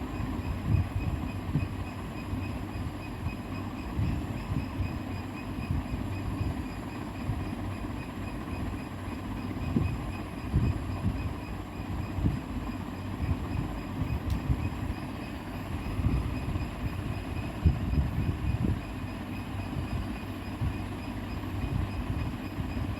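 Steady low rumble with irregular soft low thumps, under a faint steady high whine.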